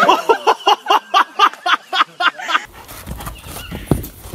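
A person laughing hard in rapid, even pulses, about four a second, for the first two and a half seconds. Then a horse's hooves thudding on dirt, with one sharp thump near the end.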